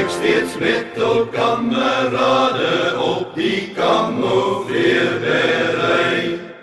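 Voices chanting a song, fading out near the end.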